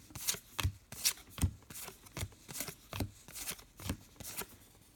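Topps Star Wars trading cards being flipped through by hand from a freshly opened pack: an uneven run of sharp card-edge clicks, roughly three a second, that stops near the end.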